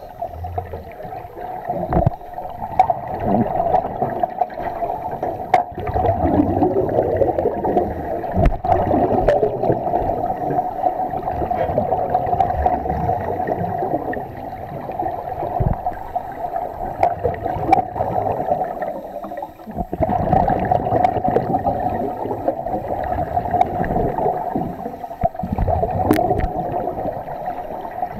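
Underwater ambience heard through an action camera's waterproof housing: a steady, muffled rush of water and bubbling, with a few sharp clicks or knocks scattered through it.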